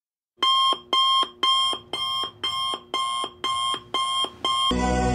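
Electronic alarm-style beeping: nine loud, evenly spaced pitched beeps at about two a second, then music begins just before the end.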